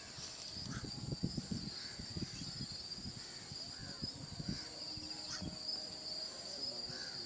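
Steady shrill trilling of insects, with a bird repeating a short call about twice a second. Rustling and soft knocks from handling fill the first half, loudest about a second in.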